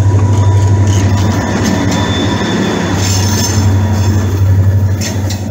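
Diesel locomotives passing close by at low speed, their engines giving a heavy, steady throb. From about three seconds in, the wheels add a high squeal against the rails.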